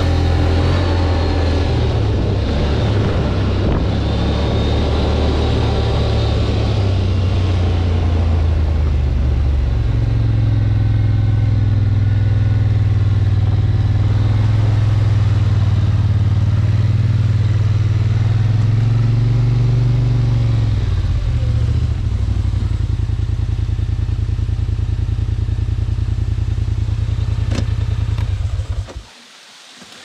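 Polaris ATV engine running under way on rough ground, its pitch rising and falling with the throttle, then stopping abruptly about a second before the end.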